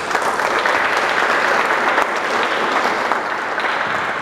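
Audience applauding: many hands clapping in a dense, even patter that starts suddenly and keeps up throughout.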